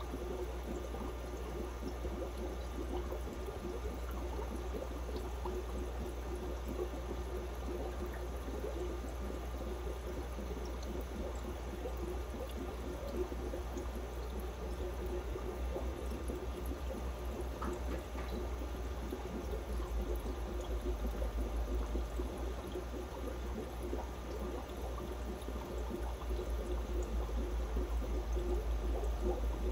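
Steady trickling and splashing of water in an aquarium, with a low hum underneath.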